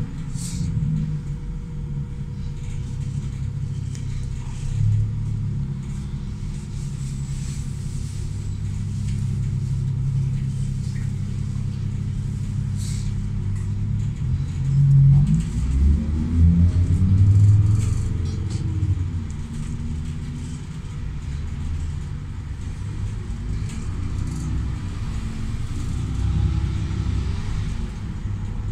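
City bus engine running, heard from inside the passenger cabin as a low rumble while the bus creeps through traffic. Its note rises as the bus pulls away about halfway through, and again more briefly near the end.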